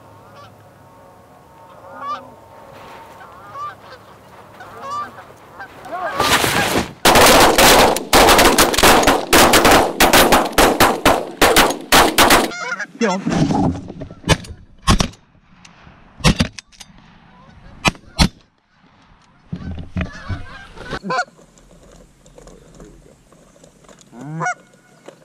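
Flock of Canada geese honking: scattered and faint at first, then a loud, dense clamour of honks from about six to twelve seconds in, thinning to scattered single honks.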